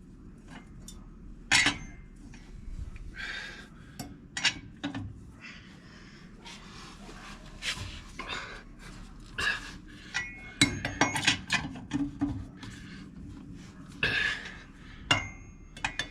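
Metal hand tools clinking and knocking in irregular clicks and clanks, as a lug wrench and sockets are handled to loosen a truck wheel's lug nuts.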